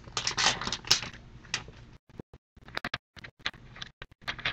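Foil wrapper of a trading-card pack crinkling as it is torn open for about the first second, then a scatter of light clicks and flicks as the cardboard football cards are thumbed through.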